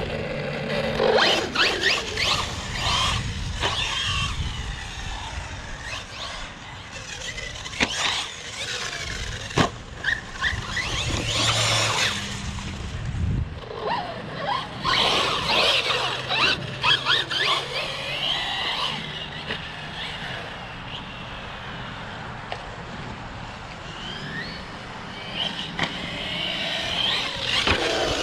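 Electric RC car being driven hard, its motor whining up and down in pitch as it speeds up and slows, with tire squeal and a few sharp knocks from bumps or landings.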